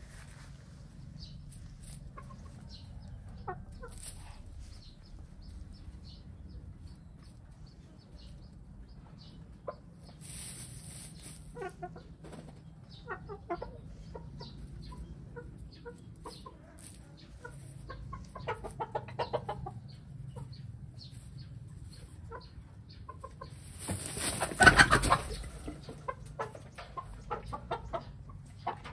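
Brown laying hens clucking while they peck and scratch in straw bedding, with many short tapping sounds. About three-quarters of the way through there is a louder burst of noise lasting about two seconds.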